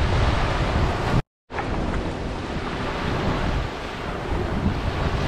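Gentle waves rolling onto a sandy beach, with wind rumbling on the microphone. The sound cuts out to silence for a moment about a second in, then resumes.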